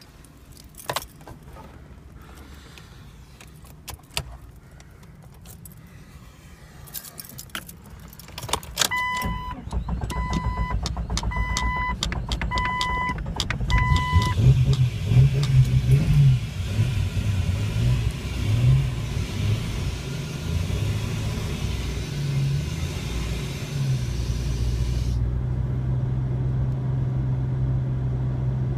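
Keys jangling, then the Jeep Cherokee XJ's warning chime sounding about five times while the 4.0 inline-six is cranked over; the engine runs unevenly before settling into a steady idle about 24 seconds in. It is a crank-no-start fault that the owner says clears once the transmission is shifted into drive.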